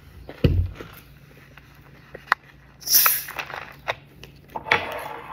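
A plastic Coke Zero bottle's screw cap is twisted open, releasing the carbonation with a short sharp hiss about three seconds in. A low thump comes about half a second in.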